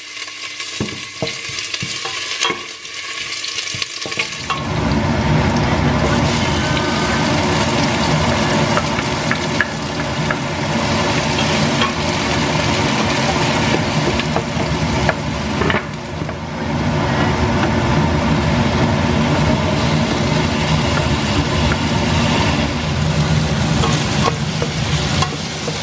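Ginger, onion, tomato and green chili sautéing in olive oil in a stainless steel pot, sizzling. The sizzle grows much louder about four seconds in. A wooden spoon stirring gives occasional knocks against the pot.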